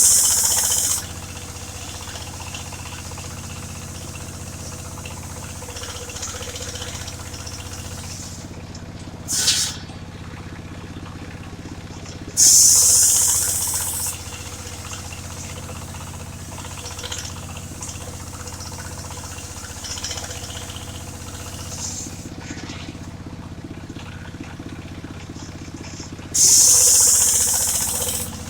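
Engine of a mobile circular sawmill running steadily while sawing a large log into planks. Three loud hissing bursts, about 13 to 14 seconds apart, each last a second or two and fade away.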